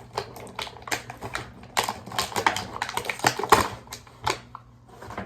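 Irregular rapid clicks and crinkles of plastic packaging being handled as a toy airplane model is taken out of its box.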